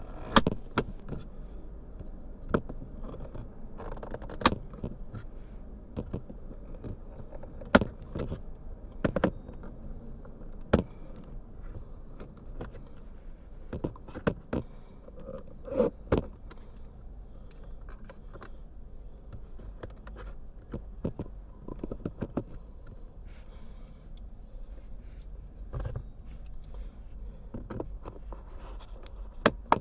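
Large end cutting pliers biting through and snapping off pieces of a thick plastic lip on a console trim part, a series of sharp snaps and clicks at uneven intervals.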